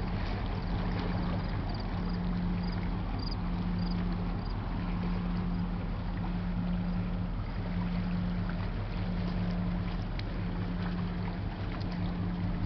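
Low engine drone across the water, throbbing in a slow steady beat, over a haze of wind and water noise.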